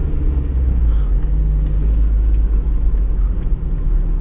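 SUV engine and running gear rumbling steadily, heard from inside the cabin while driving over soft sand.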